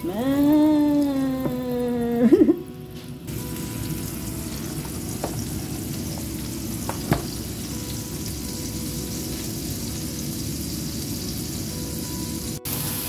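Butter and oil frying in a hot stainless-steel wok, a steady sizzle. For the first two seconds a held pitched tone sounds over it, ending in a brief loud burst, and the sound cuts out for a moment near the end.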